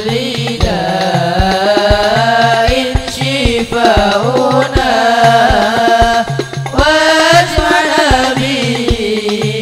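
Young male voices singing an Arabic devotional qasidah together into microphones, the melody rising and falling in long held lines. A steady beat of hand drums runs underneath.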